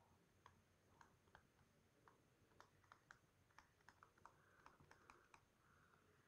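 Faint, irregular tapping and clicking of a stylus on a tablet's glass screen while a word is handwritten: about fifteen light taps, with a few soft strokes between them.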